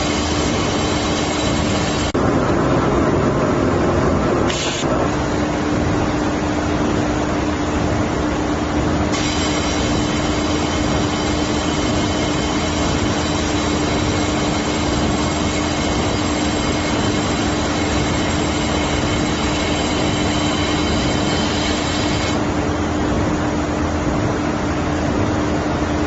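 Automatic fiber laser welding machine running: a steady hum over a constant rushing hiss. A high-pitched whine comes in during the first two seconds and again through most of the middle.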